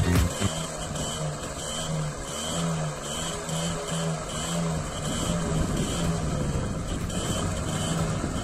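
The 50 cc single-cylinder two-stroke engine of a TVS 50 moped running, its pitch wavering slightly, with background music pulsing at about two beats a second underneath.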